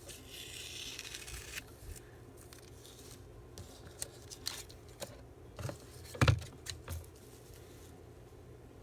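Washi tape and paper being handled on a craft table: a tearing, rustling sound for about a second and a half, then scattered light clicks and taps, with one louder thump about six seconds in.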